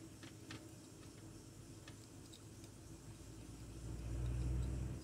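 Razor blade held between a mini lathe's cutting tool and a brass workpiece as the tool is fed in to touch off: a few faint ticks over a steady low hum, with a louder low rumble swelling near the end.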